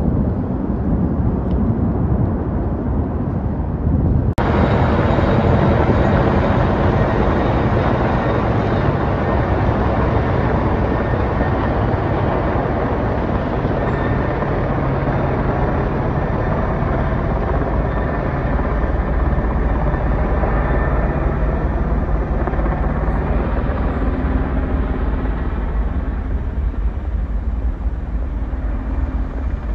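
Formation of four military helicopters flying overhead: a steady rotor and engine rumble that eases slightly near the end. In the first four seconds, before a sudden cut, the rumble of a pair of military aircraft flying low in the distance.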